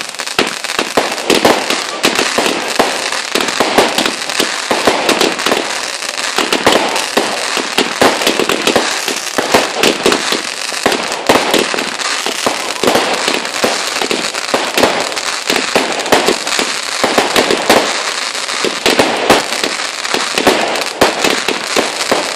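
Fireworks going off in rapid succession: dense crackling stars mixed with many sharp bangs, several a second.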